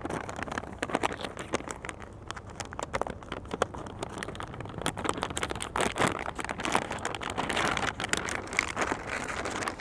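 Ration packaging being handled: plastic and foil crinkling and rustling, with many small irregular clicks.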